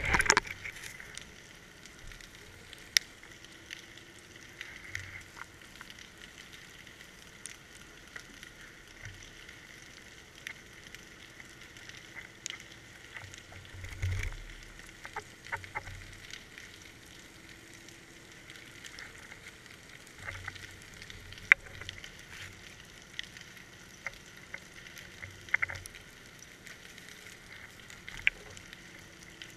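Muffled underwater sound through a GoPro's waterproof housing: a faint steady hiss with scattered sharp clicks and ticks, and a low thump about halfway through.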